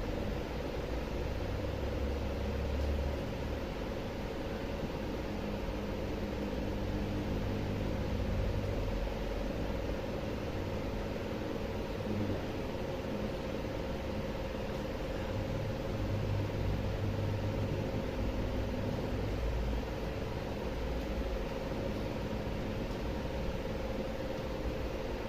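Steady mechanical hum with a constant mid-pitched tone and a low rumble, unchanging throughout.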